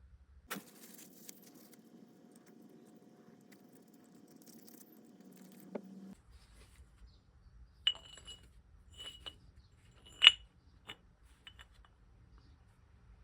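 A faint steady hum for about six seconds, then a run of sharp metallic clinks with a short ringing tone, about half a dozen, the loudest a little past ten seconds in: small metal parts knocking together.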